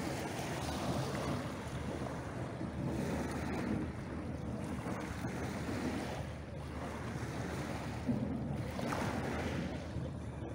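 Small waves washing in at the edge of a pebble beach, the surf swelling and fading every few seconds, with wind buffeting the microphone.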